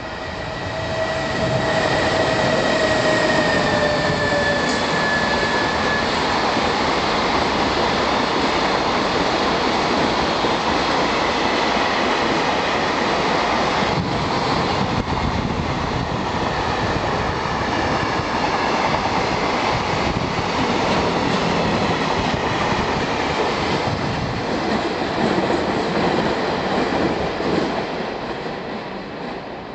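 JR Freight container train hauled by an EF210 electric locomotive running through. A high whine sinks slightly in pitch over the first few seconds, then the wagons keep up a steady rolling noise that fades near the end.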